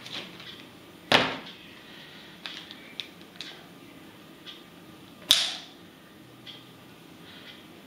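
Two sharp metallic clacks, one about a second in and one about five seconds in, with lighter handling clicks between them. The later clack is a steel knife snapping onto a strong magnet-fishing magnet.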